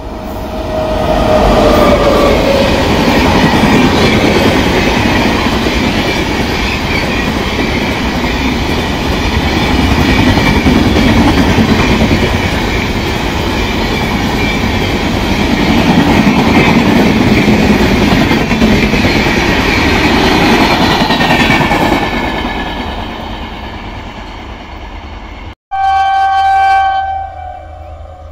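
Express train hauled by an electric locomotive passing at speed: a loud, steady rush of wheels and coaches on the rails that fades away after about twenty seconds. A horn sounds at the start, sliding slightly down in pitch. After a sudden break near the end, a short horn blast is heard.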